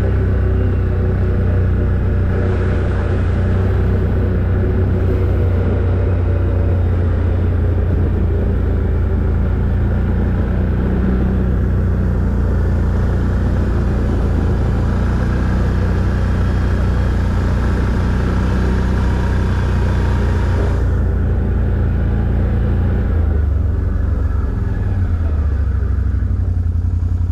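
ATV engine running steadily while riding along a gravel forest track, its note shifting about three-quarters of the way through.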